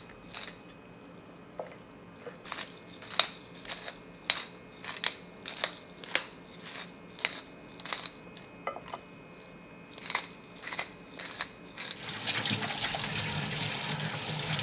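Irregular crunchy clicks as black pepper is ground over raw chicken, then, about 12 seconds in, a kitchen faucet running onto hands in a stainless steel sink, which is the loudest sound.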